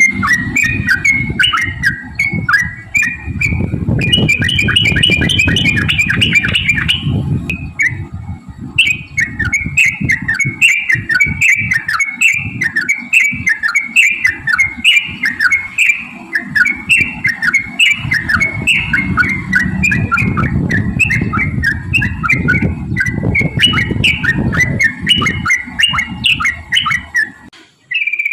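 Yellow-vented bulbul (trucukan) singing a long, rapid, unbroken run of chirping, warbling notes, with a short pause about seven seconds in. A loud low rumble runs beneath the song.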